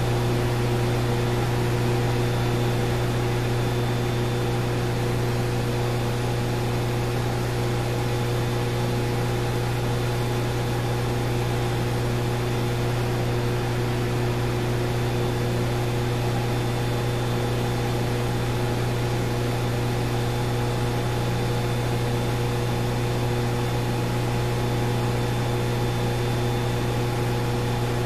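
Hydroelectric power plant generator running: a steady electrical hum with a strong low drone and several fixed higher tones over an even hiss.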